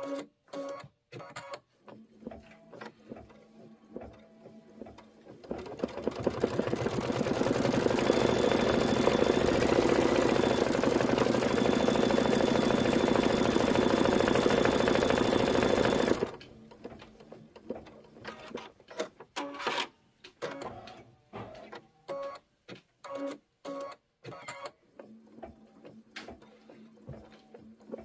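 Computerized embroidery machine stitching out a design: separate needle-stroke clicks at first, then from about six seconds in a much louder, dense, continuous stretch of stitching lasting about ten seconds, then back to separate uneven clicks.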